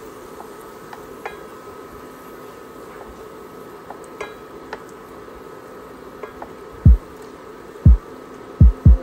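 Garlic sizzling in oil in a cast-iron skillet on an induction cooktop, over the hob's steady buzzing hum, with a few light taps of a silicone spatula against the pan. About two-thirds through come four heavy, deep thumps, the loudest sounds here.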